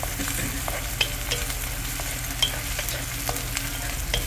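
Chopped onions sizzling in oil in a steel kadai, stirred with a wooden spatula that scrapes and taps against the pan at irregular moments; the onions are almost golden brown.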